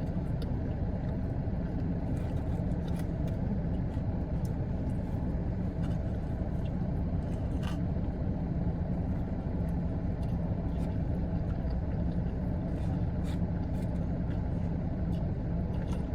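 Steady low rumble of a car engine idling, with faint scattered clicks from eating.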